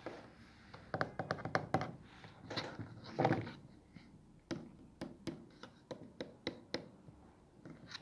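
A foldable desk phone holder being handled and folded by hand: irregular clicks, taps and knocks from its hinged arms and stand, with a denser cluster about a second in and a louder scrape of handling about three seconds in.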